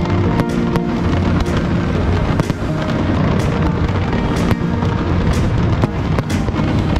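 Fireworks display: many sharp bangs and crackles in quick succession over music playing throughout.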